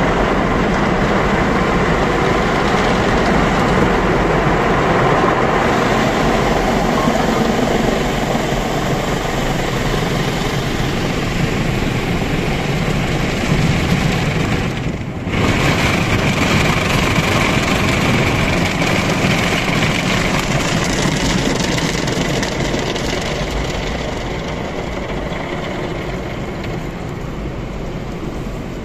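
Automatic car wash heard from inside the car: water jets and rotating brushes pounding over the body and glass, with the wash machinery rumbling, as a loud steady rush of noise. It drops out for a moment about halfway, then carries on.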